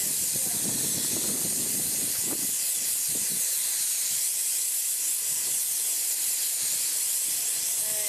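Airless paint spray gun spraying waterproof, heat-insulating roof coating onto corrugated metal roof sheeting: a steady, unbroken hiss.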